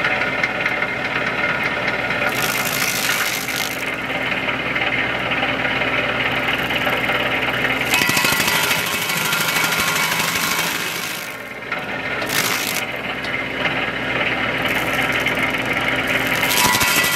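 Baumalight 3P24 PTO-driven stump grinder on a compact tractor, its cutter wheel running with a steady machine hum and biting into a tree stump in about five bursts of harsh grinding; the longest burst lasts about three seconds.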